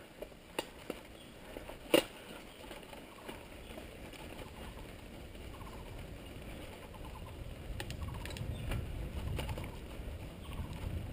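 Downhill mountain bike rolling down a dirt-and-gravel trail: sharp knocks and rattles from the bike over the ground, the loudest about two seconds in, and a low rumble of tyres and wind that grows in the second half.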